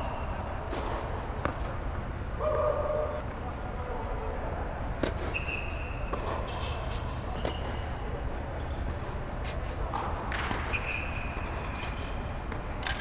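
Tennis rally on an indoor hard court: sharp pops of racket strings striking the ball and the ball bouncing, with short high sneaker squeaks as the players move, over a steady low hum.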